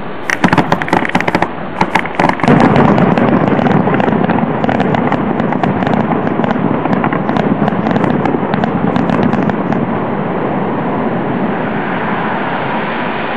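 Aerial fireworks bursting in quick succession: a rapid string of sharp bangs in the first couple of seconds, then a dense, continuous rumble of overlapping bursts with crackling. The bangs die out about ten seconds in, leaving a steady rushing noise.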